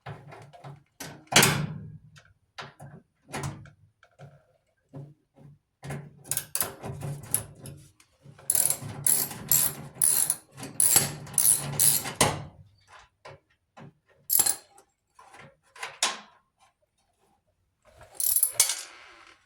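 Socket ratchet clicking in quick runs as screws are backed out of a clothes dryer's panels, with a few sharper knocks in between.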